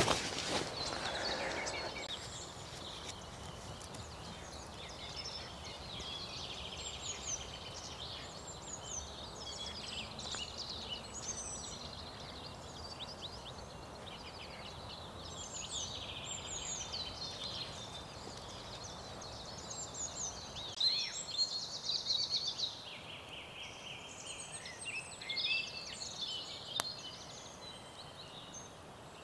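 Dawn birdsong: several small songbirds chirping and trilling on and off over a faint steady hiss, with a brief rustle at the very start.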